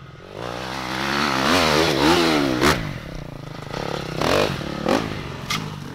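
Dirt bike engine revving up and down as the bike rides over rough forest ground, its pitch rising and falling several times and loudest about two seconds in, with a few sharp clacks later on.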